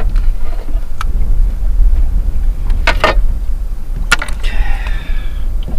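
Wind buffeting the microphone as a steady low rumble, with a few sharp clicks and rattles and a short rasp from handling a landing net and a freshly caught sea trout.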